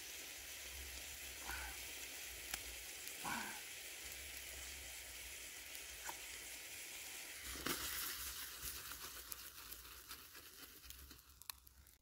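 Cream sauce with pieces of food sizzling in a frying pan over a small wood fire: a steady, even hiss, with a few faint clicks and one brief louder noise about two-thirds through. The hiss thins out in the last second.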